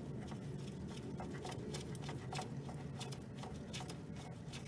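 Faint, irregular small ticks and clicks of a screw-type hose clamp on a power steering return hose being unscrewed, its screw being backed out, over a steady low hum.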